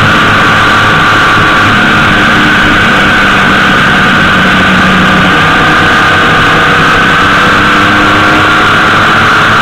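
Honda GL1800 Gold Wing motorcycle riding at steady road speed: a loud, steady rush of road and wind noise with the flat-six engine's hum underneath.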